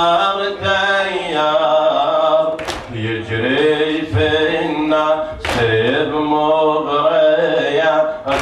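A man's solo voice chanting an Arabic latmiya, a Shia mourning lament, in long melodic lines. Short noisy breaks fall between the lines about every three seconds.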